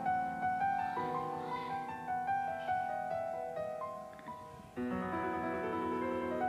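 Background piano music with held chords that change twice.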